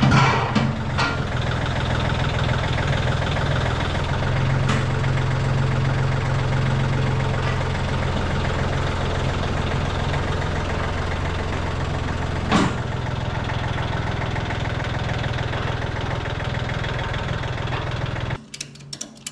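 An engine running steadily at an even speed, with two sharp clicks, one about four and a half seconds in and one about twelve and a half seconds in. The engine cuts off abruptly shortly before the end.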